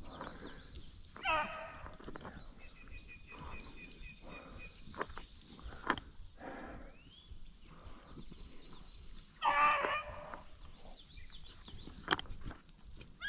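Young rabbit hounds baying in the distance as they run a rabbit's track: a short spell of baying about a second in and a longer one about nine and a half seconds in. A steady high chorus of insects runs underneath.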